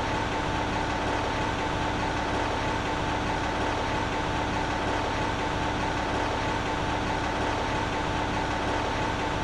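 Rosenbauer Viper Smart Aerial ladder truck running steadily at high idle to power the aerial while the ladder automatically retracts, rotates and lowers into its bed, with a constant whine over the engine drone.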